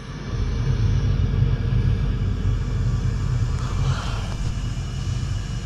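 Steady low background rumble with a slight pulsing, and a faint brief rustle about four seconds in.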